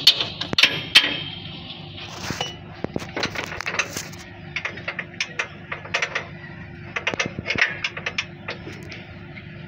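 Hand tools working metal on a vehicle's front suspension: a few sharp hammer-like strikes in the first second, then scattered light metallic clicks and clinks of tools and parts.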